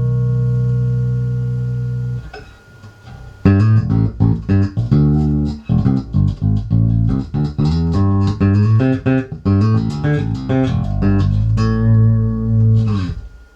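Five-string Spector electric bass with worn D'Addario Pro Steel roundwound strings, played through a Warwick TubePath 10.1 tube amp with the mids, treble and high boost turned up. A held low note rings for about two seconds and dies away, then after a short pause a fast plucked riff runs, ending on a sustained note that cuts off just before the end.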